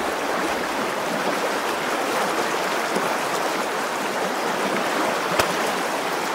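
Fast, shallow river water rushing steadily over a stony riffle, with one short click about five seconds in.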